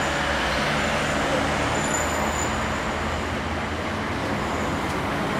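Steady road traffic noise from the street below, a continuous low rumble with hiss over it.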